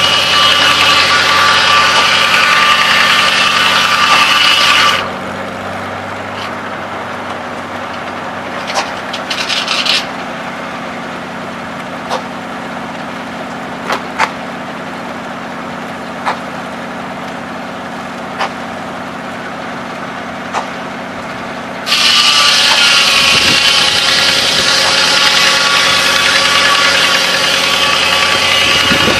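Circular sawmill blade cutting through a log, a loud, hissing rasp, over the steady hum of the engine that drives the mill. The cut ends about five seconds in, leaving the engine running with a few sharp knocks and clanks as the log carriage is worked. The blade bites into wood again about twenty-two seconds in.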